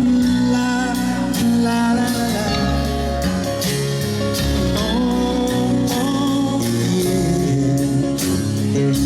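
Background music: a song with singing over guitar, bass and a steady drum beat.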